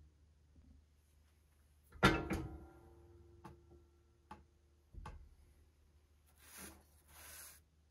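Leather and a steel clicker die being handled on a clicker press's plastic cutting board. About two seconds in comes a sharp metallic clank that rings on for about a second, then a few light taps and clicks. Near the end, two short scraping hisses as the leather is slid across the board.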